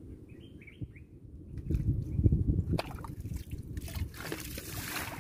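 Water splashing and dripping, louder in the second half, with a few short bird chirps about half a second in.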